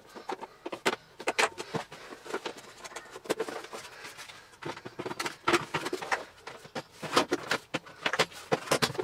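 Hard plastic parts of a Miele S2111 canister vacuum cleaner clicking and knocking as it is reassembled by hand: the filter frame and dust bag pushed into the body and the lid fitted on. Irregular, fast clatter.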